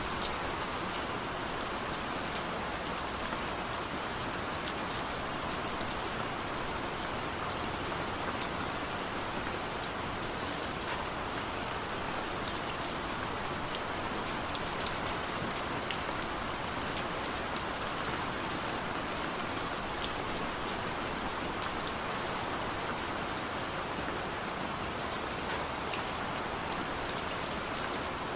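Steady rain falling, an even hiss with many small crisp drop ticks scattered through it.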